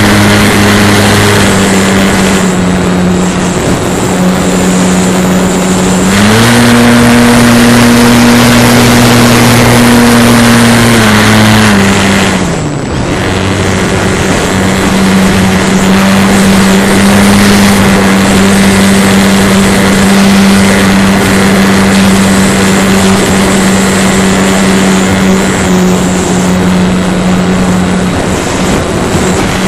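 Onboard sound of a small electric RC model airplane's motor and propeller running steadily with wind rush over the airframe. About six seconds in the pitch steps up and holds; about twelve seconds in it drops sharply as the throttle is eased off, then settles back to a steady drone.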